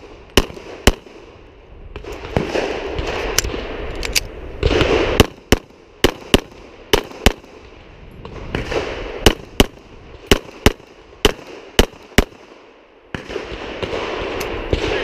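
Glock 27 .40 S&W pistol firing sharp shots in quick strings, about half a second apart, with short pauses between strings; the last shot comes about three seconds before the end.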